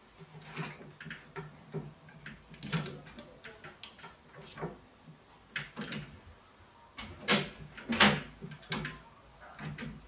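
Irregular clicks and knocks of a pneumatic screen door closer's bracket being handled and fitted by hand at the door frame, the loudest two knocks about seven and eight seconds in.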